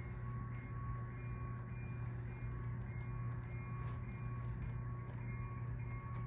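Model train running: a steady low hum with scattered light clicks as the boxcars roll along the track.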